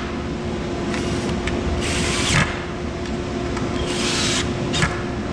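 A few short bursts of wood scraping and rubbing against wood as the rack's bottom brace is fitted flush against the sides and screwed in.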